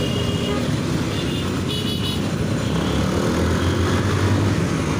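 Steady drone of a motor vehicle's engine, with traffic noise.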